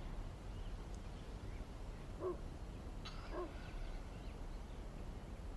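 Faint background ambience with two short animal calls, a little over a second apart, near the middle.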